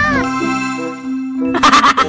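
Children's background music with held notes, ending in a short noisy sound effect of rapid clicks about a second and a half in.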